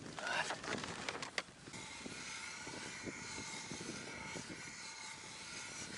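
Hand ice auger cutting a hole through lake ice: a steady grinding scrape from about two seconds in. Before it come scattered knocks and clicks.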